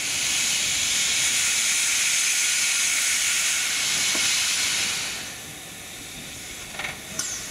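Prussian T 13 tank steam locomotive letting off a loud, steady hiss of steam for about five seconds, which then dies away. A brief high squeak follows near the end.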